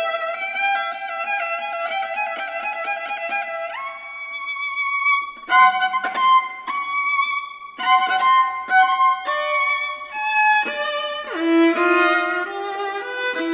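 Solo viola, bowed. It plays held notes, then a higher note with vibrato about four seconds in. Short phrases follow, broken off by sudden gaps, and near the end a low note is bowed over and over.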